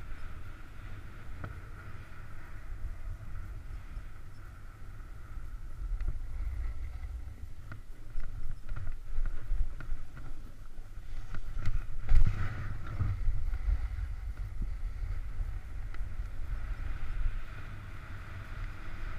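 Wind rushing over a GoPro's microphone on a fast downhill run on snow, with the hiss and scrape of sliding over the snow; it grows louder and rougher about two-thirds of the way through, with a sharp jolt around the middle.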